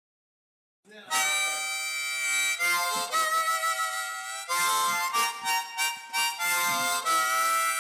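After a second of silence, a harmonica starts a solo song intro, playing long held notes and chords with quicker note changes between them.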